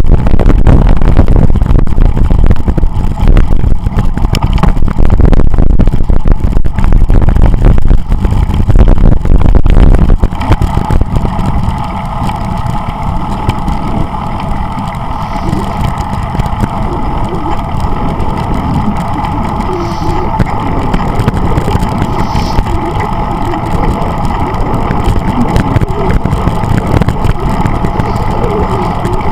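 Wind buffeting the microphone of a camera on a moving bicycle, a loud rumble that drops about ten seconds in to a steadier, quieter rushing hum.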